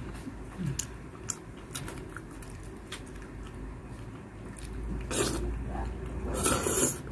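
Close-up eating sounds: small wet mouth clicks of chewing. About five seconds in and again near the end come louder wet eating noises as a fingerful of boiled leafy vegetables goes into the mouth.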